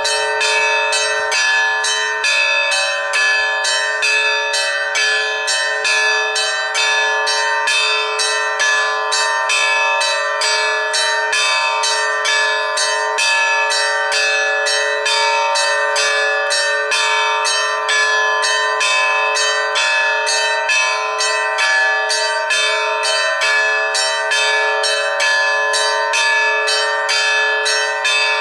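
Russian Orthodox church bells ringing in a continuous peal: smaller bells struck quickly, about three or four strokes a second, over the steady ringing of a deeper bell.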